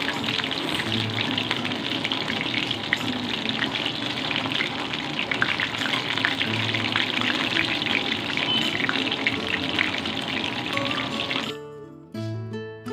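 Marinated chicken pieces frying in hot oil: a steady sizzle with dense crackling. About eleven and a half seconds in, the sizzle cuts off and acoustic guitar music plays.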